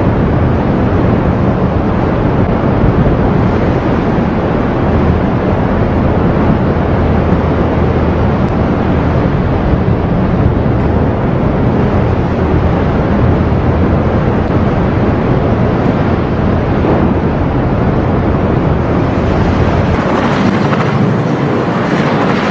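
Steady rush of wind on the microphone mixed with the churn of sea water thrown up between two ships running close alongside at speed. About twenty seconds in the sound changes suddenly to a different steady noise.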